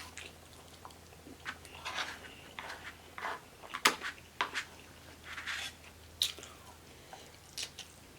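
Close-miked chewing and mouth sounds of someone eating, a scatter of soft wet and crunchy bites with a sharp click about four seconds in.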